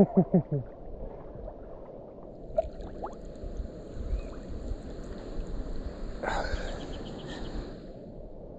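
River water lapping and sloshing against a camera held at the water's surface, with a low rumble of wind or handling and a sudden splash-like knock about six seconds in. A few short voice-like sounds come in the first second.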